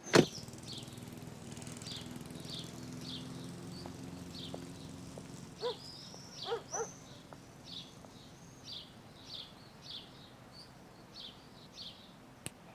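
A bird chirping over and over, short high notes about twice a second, with a few lower calls around the middle. A faint low hum runs under it for the first few seconds.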